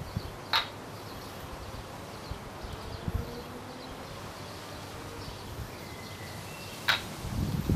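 Two sharp wooden clacks, about six seconds apart, from a maple kendama as the ball lands on the wooden ken when tricks are caught. Faint thin chirping tones sit in the steady background.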